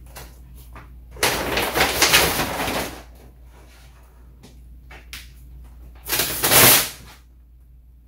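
Large sheet of black vinyl wrap film rustling and crinkling as it is pulled and draped over a golf cart's front body panel, in two bursts: a longer one about a second in and a shorter, louder one near the end.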